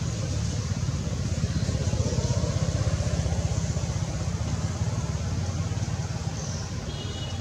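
A steady low background rumble, with a few faint high chirps near the end.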